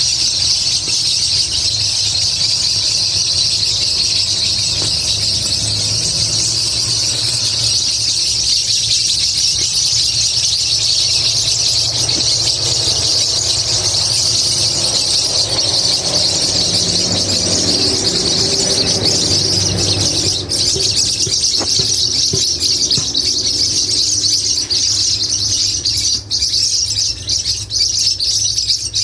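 A flock of maritacas (small Brazilian parrots) and parakeets screeching and chattering continuously, many birds at once in a loud, unbroken high-pitched din.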